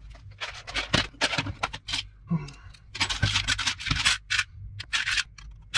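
Gloved hands rummaging among tools and parts on a workbench: an irregular run of rustling, scraping and light clattering.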